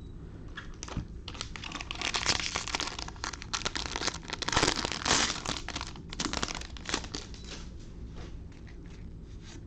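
Plastic wrapper of a trading-card pack crinkling as it is torn open and crumpled, in two loudest spells about two and five seconds in.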